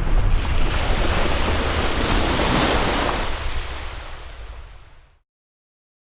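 Sea waves breaking on a beach, with wind buffeting the microphone; the surf swells about two seconds in, then fades out and cuts to silence near the end.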